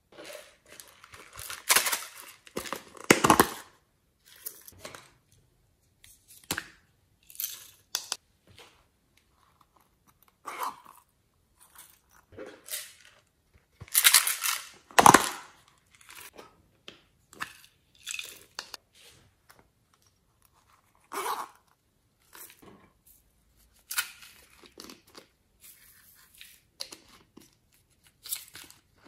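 Slime with clay mixed into it being handled and worked by hand: irregular short bursts of sticky, crackly noise with quiet gaps between, loudest about two to three seconds in and again about halfway through.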